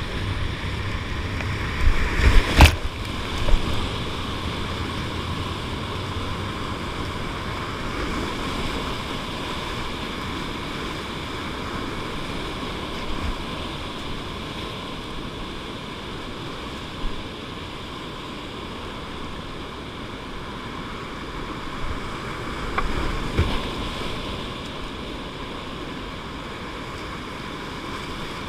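Whitewater rapids rushing steadily around a kayak. Loud splashes and a sharp knock come about two to three seconds in, and more splashing follows around two-thirds of the way through, as waves and paddle strokes hit the boat and the spray-covered camera.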